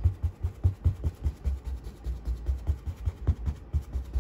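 A wide flat paintbrush tapped repeatedly against a stretched canvas: a quick run of dull thumps, about four or five a second, that run together into a denser patter in the second half. The brush is being stippled to make a misted area at the foot of the mountains.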